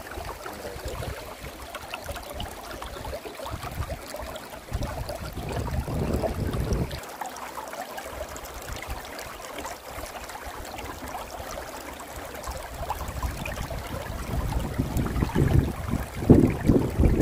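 Gusts of wind buffeting the microphone in irregular low rumbles, over a steady rushing outdoor background.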